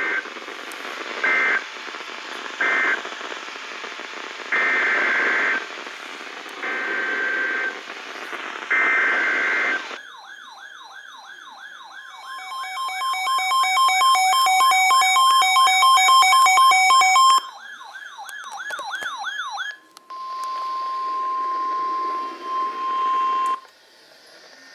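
NOAA Weather Radio Emergency Alert System tones. Three short screeching SAME data bursts end the previous message, and then three longer bursts of about a second each form the triple header of a new alert. A wavering, siren-like warble with beeping tones follows for about seven seconds, and then a steady single-pitch alert tone, the 1050 Hz weather radio tone, sounds for about three seconds.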